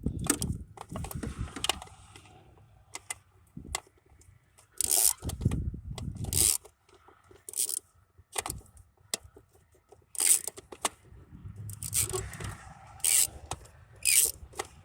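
Irregular scraping, rubbing and sharp metallic clicks of hands and a tool working at a 1993 Chevy truck's distributor to pry the stuck distributor cap loose, with several louder scrapes and clinks spread through.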